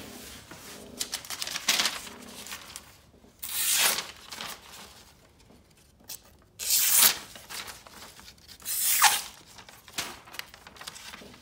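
A freshly sharpened Gerber Gator Bolo machete slicing through a sheet of yellow legal-pad paper in several quick strokes. Each stroke is a short ripping swish, the loudest four spread two to three seconds apart. This is a paper test of the new 25-degree edge, and the blade cuts through without snagging.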